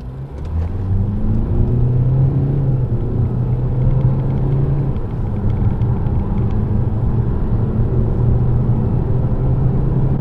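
Opel Insignia 1.6 CDTI four-cylinder turbodiesel under full-throttle acceleration, heard from inside the cabin along with road rumble. The engine note climbs quickly in the first second or two, then holds, with a brief dip about halfway through.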